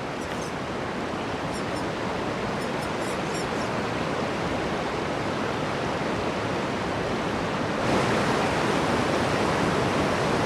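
A steady rushing outdoor noise that grows a little louder about eight seconds in, with a few faint high chirps about two to three seconds in.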